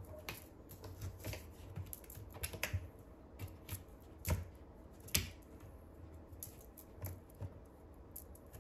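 Irregular clicks and taps of a British Shorthair cat's paws and claws on a corrugated cardboard scratcher lounge as it pounces and bats at a wand toy. The two loudest knocks come about four and five seconds in.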